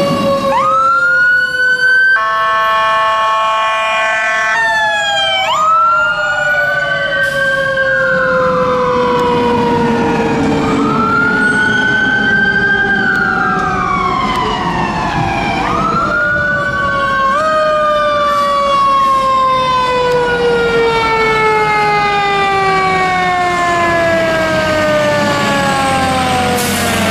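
Fire apparatus sirens sounding together. A mechanical Q siren winds slowly down in pitch over the whole stretch, while electronic sirens wail up and down over it. About two seconds in there is a steady horn blast of roughly two and a half seconds.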